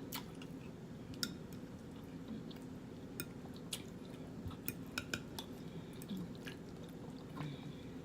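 Close-up eating sounds: chewing with scattered short wet clicks and smacks, over a steady low hum.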